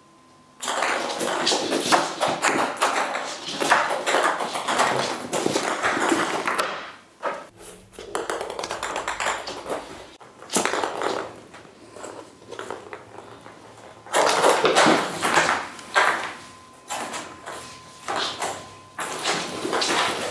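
A small toy ball rolling and bouncing along a wooden floor as a kitten bats it, in two long clattering runs of quick ticks with quieter scattered taps between.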